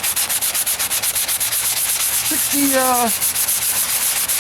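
Hand sanding of a body-filler patch on a truck's steel wheel arch, with sandpaper on a sanding block, in quick, even back-and-forth strokes.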